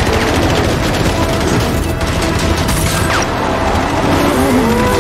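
Action-film soundtrack: muscle-car engines racing on a dirt track, with rapid gunfire and a music score underneath. An engine pitch rises near the end and then drops.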